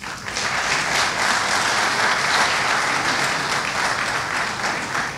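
An audience applauding, starting all at once and dying away near the end.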